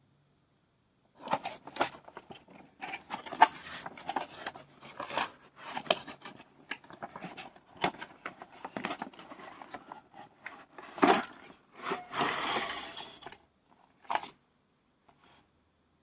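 Toy packaging being opened and handled: an irregular run of crinkling, scraping and tapping, with a longer stretch of tearing or crinkling near the end.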